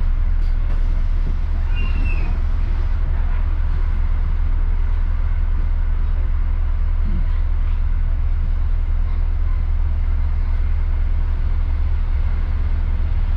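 Steady low rumble of a city bus's engine and road noise, heard from inside the moving bus.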